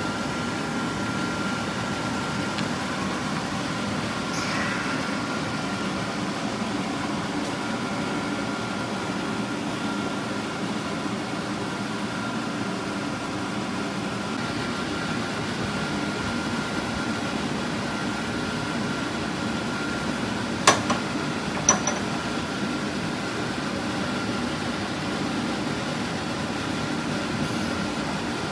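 Steady hum of a ventilation fan, with a faint high whine. Two sharp clicks about a second apart, around two-thirds of the way through.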